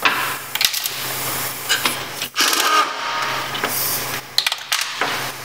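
Power ratchet whirring in several short runs as it backs out bolts on a 700R4 transmission's valve body, with a few clicks of metal between the runs.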